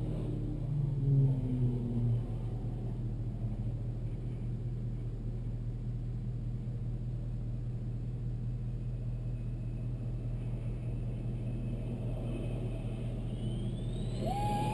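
Steady low hum of an idling vehicle engine, heard from inside the cab. Near the end a jet engine's whine rises as a DC-10 air tanker approaches.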